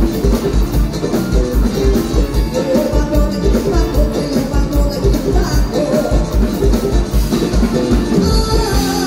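Live band music played loud through stage PA speakers: a woman singing into a microphone over a steady, driving bass-drum beat.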